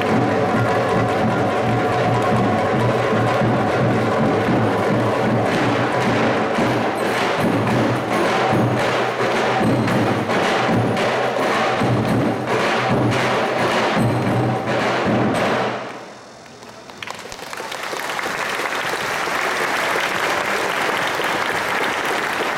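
Turkish folk music: an ensemble of davul bass drums and frame drums beating in unison under a sustained melody, stopping abruptly about sixteen seconds in. Audience applause follows.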